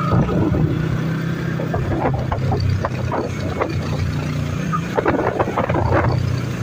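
Yamaha sport motorcycle's engine running steadily in third gear at low road speed.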